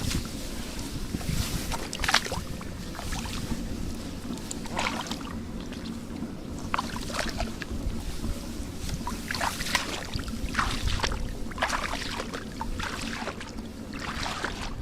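Water splashing and sloshing in short, irregular bursts, about ten of them, as hands work through shallow water, over a steady low rumble of wind on the microphone.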